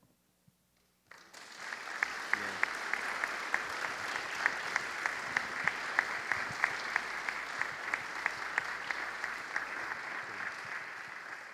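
Congregation applauding. The clapping starts about a second in, holds steady, and dies away near the end.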